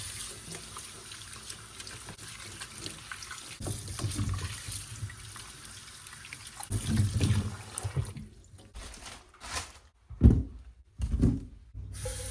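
Water running from a kitchen tap into a sink, with a few dull bumps of things being handled.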